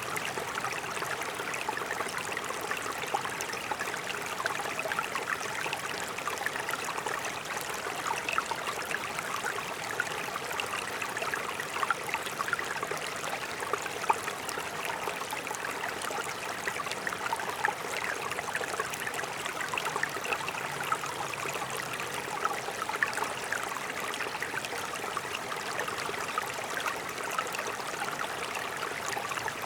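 Mountain brook flowing steadily, water burbling and splashing over stones in many small quick splashes.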